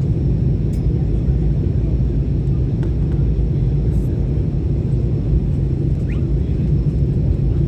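Airliner cabin noise in flight: a loud, steady low rumble of the jet engines and airflow, heard from inside the passenger cabin during the descent.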